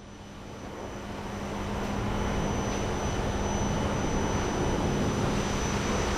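Steady rushing background noise with a low hum, fading in over the first couple of seconds and then holding steady.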